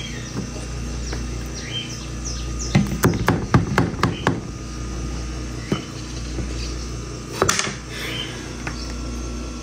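Birds chirping faintly over a steady low hum, with a quick clatter of about nine knocks about three seconds in and single knocks later on, kitchen utensils knocking against a pan.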